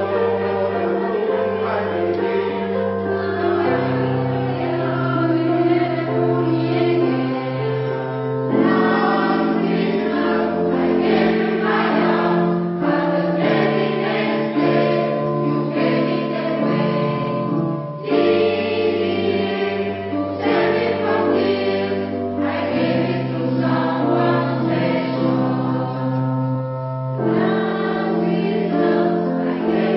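A polyphonic choir singing in several parts, holding chords that change every couple of seconds.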